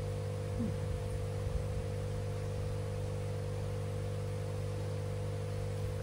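Steady electrical mains hum over a faint even hiss.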